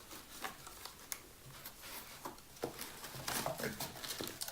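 Cardboard packing being handled and pulled out: scattered rustles, scrapes and light knocks.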